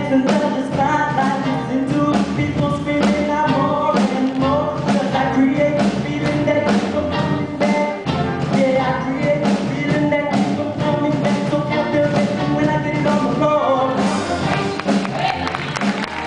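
Show choir singing an upbeat rock-and-roll style number over band accompaniment with a steady drum beat.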